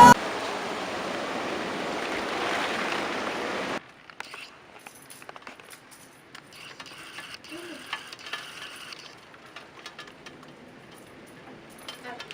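Steady hiss of heavy rain for about four seconds, cut off abruptly. It is followed by a quieter stretch of faint scattered clicks and rattles.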